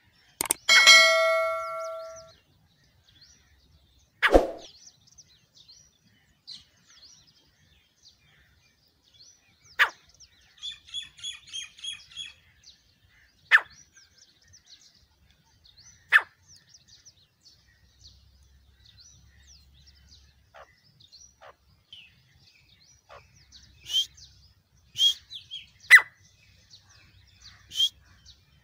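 A bell-like ding rings out about a second in. Grey francolin calls follow: scattered single sharp notes, a quick run of repeated chirping notes near the middle, and several loud sharp notes near the end.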